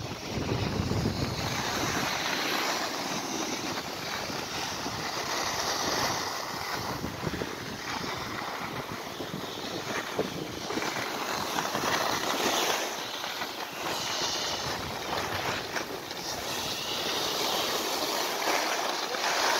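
Skis sliding and scraping over packed, groomed snow: a continuous hiss that swells and eases as the skier glides downhill. Wind rumbles on the microphone at times.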